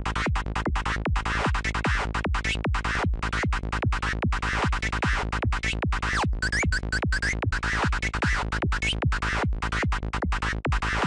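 Dark FM-style psytrance lead synth from Native Instruments Massive, with oscillator feedback added, playing a fast run of short, evenly spaced notes, about four to five a second. A brighter sweep rises in its upper range about six to seven seconds in.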